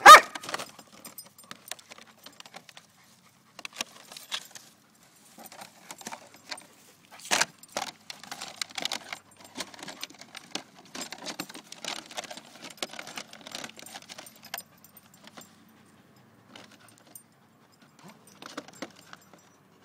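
A dog gives one loud bark at the start, then mouths and shakes a crumpled plastic bucket, making scattered crinkling and crackling plastic noises. There is a louder knock about seven seconds in, and the crackling is thickest for the next several seconds.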